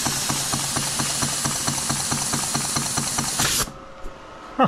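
Shop-built model steam engine running steadily: a continuous hiss with an even chuffing beat of about six a second. It cuts off suddenly about three and a half seconds in.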